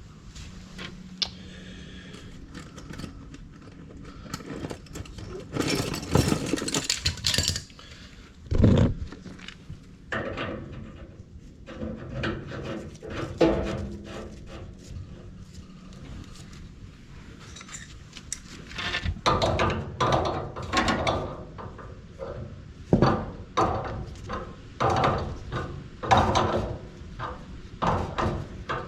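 Hand tools and metal gas fittings being handled: irregular clinks, clunks and rattles, with a heavy thump about nine seconds in.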